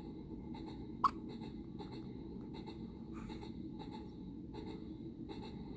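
A newborn baby hiccuping once, a short sharp hic about a second in, over a faint steady hum with soft scattered ticks.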